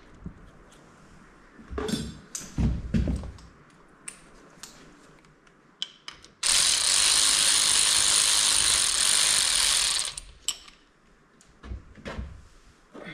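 A power ratchet runs a transmission tail-housing bolt in with one steady run of about three and a half seconds, starting about six seconds in. Before it come a few knocks and clinks of bolts and metal parts being handled.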